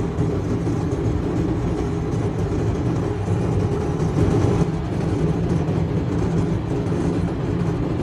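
Vehicle engine and road noise: a steady low rumble with a droning hum as the vehicle drives along a snowy road.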